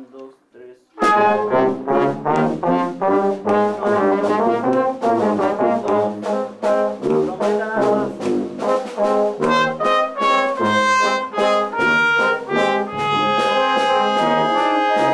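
Village wind band of brass and woodwinds playing. It comes in loud about a second in with quick, short notes, then holds long chords near the end.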